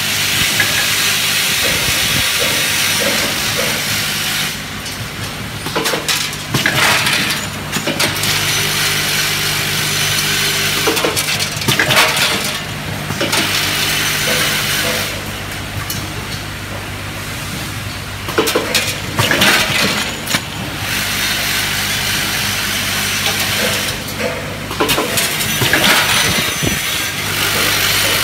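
Hardware counting and packing machine running: its vibratory bowl feeders hum steadily while metal parts such as screws and nails rattle through the bowls and chutes. A louder metallic clatter comes about every six to seven seconds, and the rattle eases off for a few seconds at a time between the peaks.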